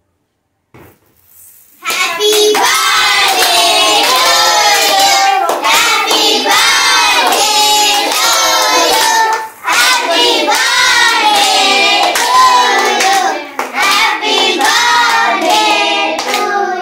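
A group, children among them, singing a birthday song together while clapping along in rhythm, starting about two seconds in.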